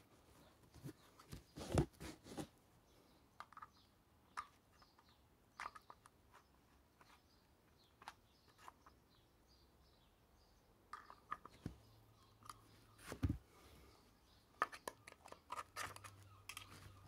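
Scattered, irregular clicks and knocks, loudest about two seconds in and again about thirteen seconds in, with faint bird chirps in the background.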